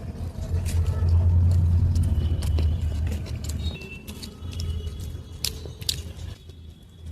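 Low rumble like passing road traffic, strongest in the first half, with scattered sharp clicks.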